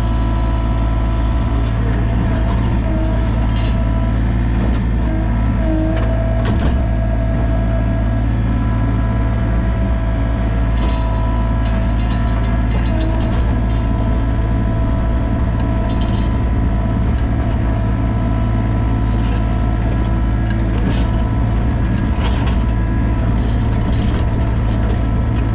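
Sany mini excavator's diesel engine running steadily: a low drone with a steady whine above it and occasional short clanks.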